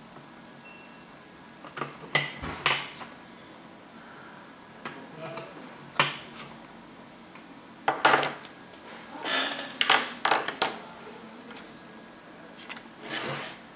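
Scattered clicks, taps and light clatter of small hard objects being picked up and set down on a work table, with a few brief rustling scrapes.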